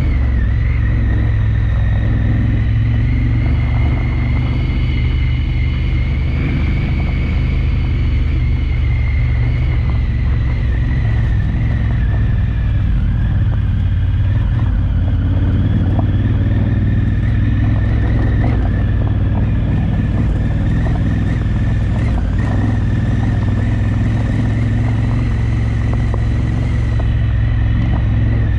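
Twin-cylinder adventure motorcycle engine running steadily under way, a deep even rumble with a steady high whine over it.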